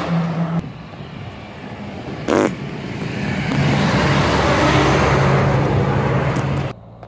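A Kenworth T800 semi truck pulling a trailer drives past close by. Its engine and tyre noise build over a few seconds to loud as it goes by, then cut off suddenly near the end. A brief sharp sound comes about two seconds in.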